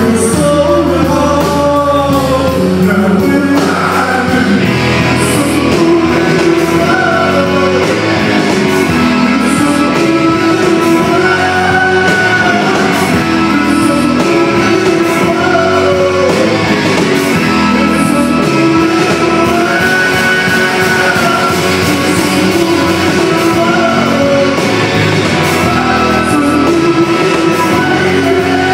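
Rock band playing live: electric guitars, drums and organ, with a singer's voice over them.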